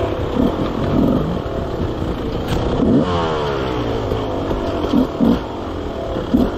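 Enduro dirt bike engine ridden over rough terrain, its revs rising and falling with short throttle blips.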